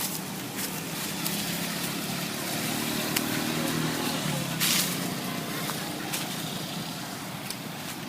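A motor vehicle passing on a road, growing louder to a peak about four to five seconds in and then fading.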